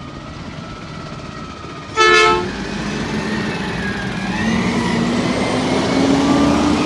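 Freightliner Condor garbage truck's horn giving one short, loud honk about two seconds in, over the truck's running engine, which then rises slowly in pitch as it speeds up.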